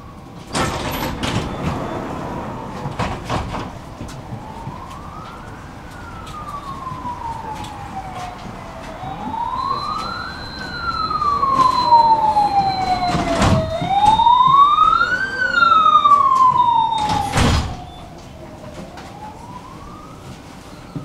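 Emergency vehicle siren wailing, its pitch sweeping slowly up and down about every five seconds, growing louder toward the middle and fading near the end. A few sharp knocks sound over it, the loudest a little past the middle and just before the siren fades.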